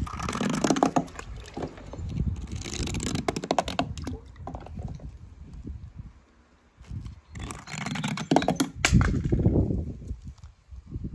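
A small die-cast toy car being pushed by hand over rows of glitter-covered crayons, making a rattling, scraping noise in two spells with a short pause about six seconds in.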